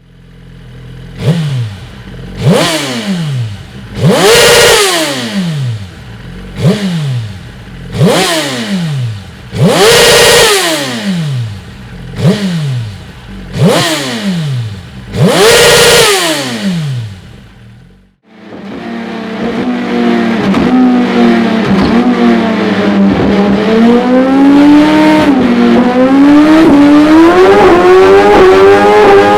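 Suzuki GSX-R1000 inline-four through an aftermarket full exhaust: about nine sharp throttle blips, each rising and dropping back quickly. After a cut, the engine runs continuously under load on a dyno, its pitch wavering and then climbing steadily.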